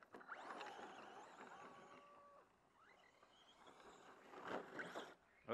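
Faint whine of an electric RC car motor, rising and falling in pitch as the throttle is worked, with a steady spell in the middle. There is a sharp knock at the very end.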